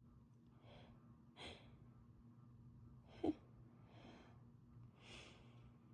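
A person's faint, uneven breaths, about five in all, with a short, louder voiced catch about three seconds in: the build-up to a cold sneeze.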